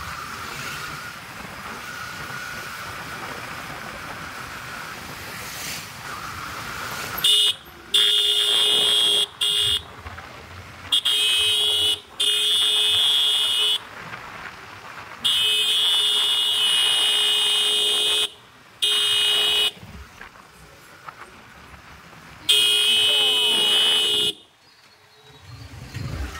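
A motorcycle horn honked again and again in long, loud blasts, about eight of them starting some seven seconds in, the first one short. Between the blasts, the steady sound of the bike's engine and wind while riding slowly.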